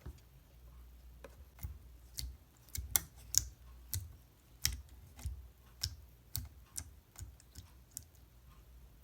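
Hands handling a slime box and its plastic containers: a run of irregular sharp clicks and taps, two or three a second, loudest about three seconds in.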